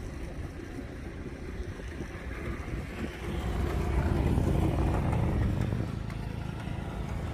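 Low rumble of a motor vehicle mixed with wind noise, growing louder about three seconds in and easing a little near the end.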